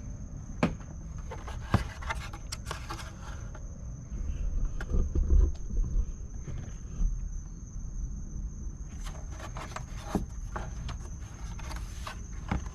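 Scattered clicks and knocks from the removed plastic tail-light housing being handled, with low rumbles loudest around the middle. A steady high-pitched insect drone of crickets runs underneath.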